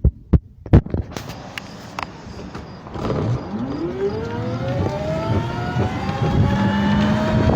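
A few sharp knocks, then from about three seconds in a scooter speeding up, its whine rising steadily in pitch over a rough grinding noise.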